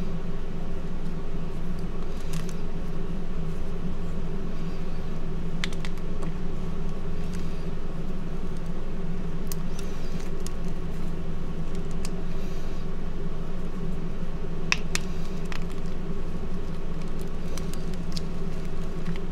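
Hands crushing and crumbling reformed gym chalk into powder, with scattered crisp crunches and crackles. A steady background hum runs underneath and is louder than the crunching.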